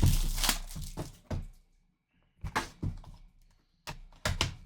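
Shrink-wrap plastic being pulled and torn off a cardboard trading-card box, in several short crinkling, rustling bursts with quiet gaps between.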